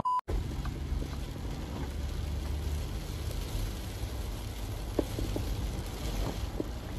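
Steady low rumble of a vehicle driving on a wet road, heard from inside the cabin, with rain on the windscreen. A few faint ticks come about five to six and a half seconds in.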